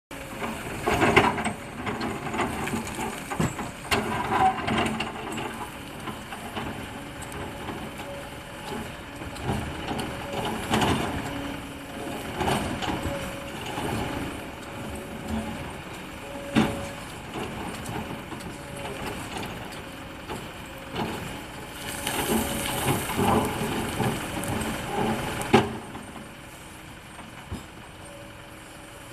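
Excavator running and working against rock: a steady engine sound with many sharp knocks and rough scraping stretches. A louder rough stretch about three quarters through cuts off suddenly, leaving the engine alone.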